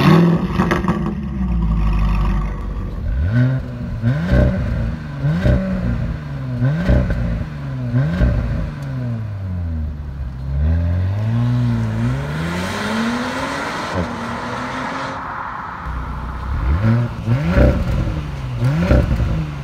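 2018 Audi A7 Sportback 3.0 TFSI V6 revved again and again through an aftermarket MG Motorsport exhaust: quick blips that rise and fall in pitch about once a second. A few seconds of steadier rushing sound come in the middle before the blips resume.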